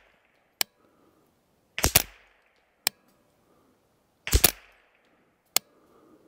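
JP15-22 .22 rimfire AR-style rifle fired one shot at a time: two sharp reports about two and a half seconds apart. Shorter single clicks fall in between.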